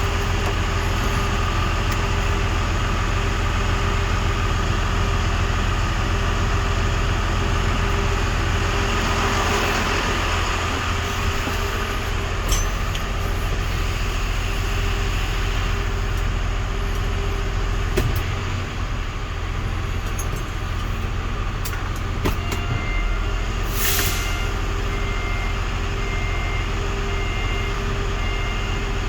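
Hyundai Mega Truck diesel engine idling steadily with a constant low hum. Late on there is a short hiss of air, about a second long, and a few faint clicks.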